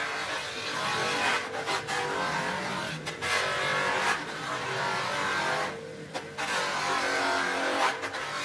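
Bench buffing machine's electric motor running steadily, with a cricket bat pressed against the spinning cloth buffing wheel; the rubbing hiss swells and drops several times as the bat is worked across the wheel and eased off.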